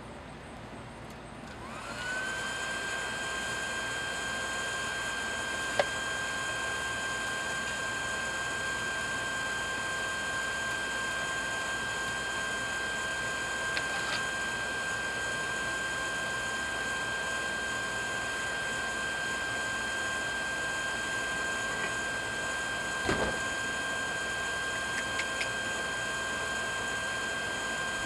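Small electric air blower on a forge switching on about two seconds in, spinning up to a steady whine and holding it, blowing air into the fire to bring the metal back to heat. A sharp knock about six seconds in and a dull thump near the end.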